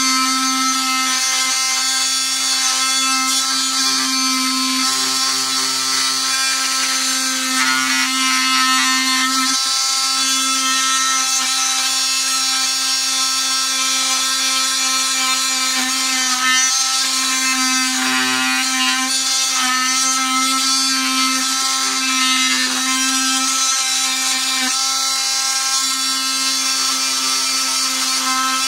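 Cordless oscillating multi-tool running steadily with a high, pitched buzz while its blade works wood, the tone shifting slightly now and then as the blade takes load. It runs on a nearly flat battery, and its owner calls it fairly loud.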